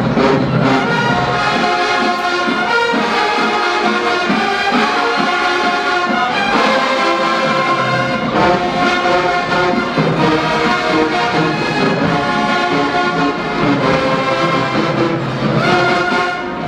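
Marching band brass section of trumpets and trombones playing loud, full chords that change every second or so.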